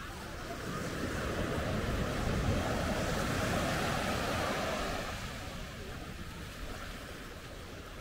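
Small wave breaking and washing up a sandy beach: a rush of surf that swells about a second in and dies away after about five seconds.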